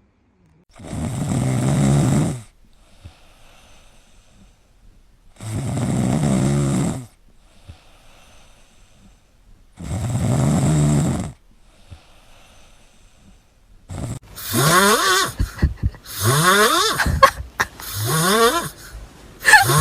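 A cat snoring: three long, loud snores about four seconds apart, with faint breathing between them. Near the end a different run of sounds takes over, with quick, repeated rising pitch sweeps.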